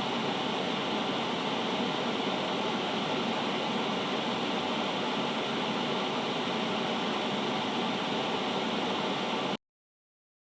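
Steady off-air static hiss of a dead broadcast signal, cutting off abruptly near the end.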